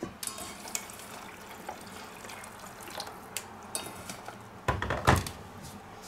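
A hand rummaging in a stainless steel bowl of chopped onion and tucking the pieces into a clay roasting pot: light clicks and scrapes of onion against the steel, with one louder, deeper knock about five seconds in.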